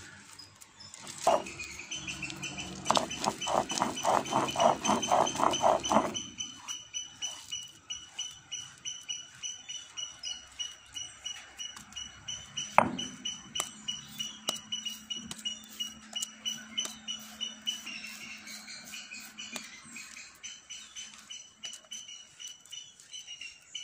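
A stone roller rubbing back and forth over red lentils on a flat grinding stone, in quick strokes about four a second, stops about six seconds in. Softer scraping of fingers gathering the lentil paste on the stone follows, with one sharp click partway through. Under it runs a steady high-pitched pulsing tone.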